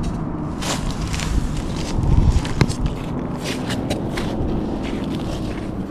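Footsteps crunching on snow-covered ice, a steady run of crisp steps about two a second, with a low rumble of wind on the microphone about two seconds in.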